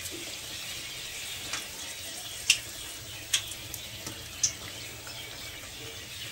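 Battered leaf bajji sizzling steadily in hot oil in a steel kadai, with a few sharp clicks as a wire skimmer taps the fritters and the pan; the loudest click comes about two and a half seconds in. The tapping is the cook's check for doneness: the sound it gives means the bajji are fried through.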